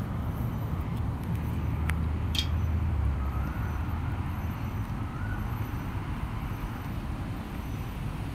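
A steady low rumble of background noise, with two sharp clicks about two seconds in.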